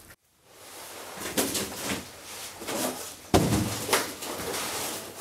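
Thuds and rustling from a large strapped cardboard box being handled, with the loudest thud about three and a half seconds in.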